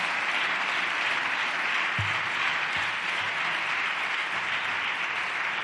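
Applause from a parliamentary chamber full of deputies: dense, steady clapping, with two low thumps about two seconds in.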